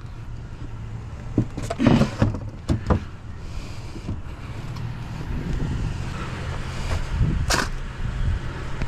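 Truck engine left idling, a steady low hum, with several sharp knocks and clunks of scrap being handled, the loudest near the end.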